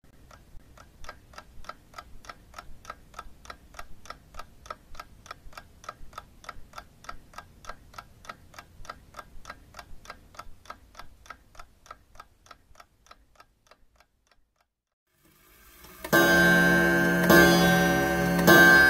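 A clock ticking steadily, about four ticks a second, fading away about thirteen seconds in. After a brief silence, music with loud held chords starts near the end.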